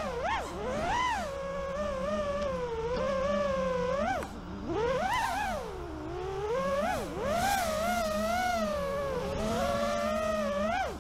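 FPV quadcopter's brushless motors and propellers whining, the pitch swooping up and down sharply with every throttle change, over a steadier low tone underneath.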